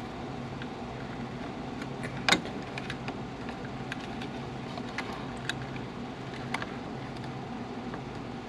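Small scattered clicks and taps of a diode's wire leads and tools being worked into the holes of a circuit board, with one sharper click about two seconds in, over a steady low hum.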